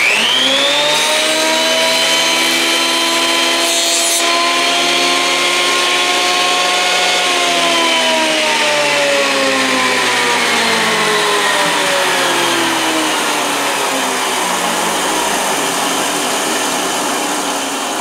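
Thickness planer switched on, its motor and cutterhead spinning up at once to a steady whine while a board's edge is fed through. About 7 seconds in it is switched off and winds down, the whine falling in pitch over several seconds.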